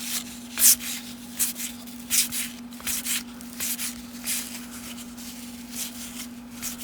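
Baseball trading cards being flipped through by hand, each card sliding off the stack with a short papery swish, about two a second at an uneven pace.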